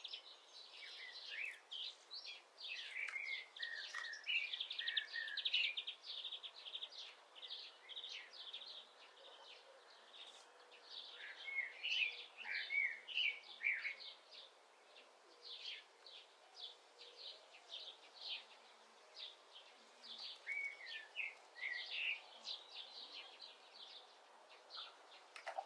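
Common starling singing: a rambling string of rapid clicks, rattles, chirps and short slurred whistles, busiest in the first few seconds and again about halfway through, then sparser.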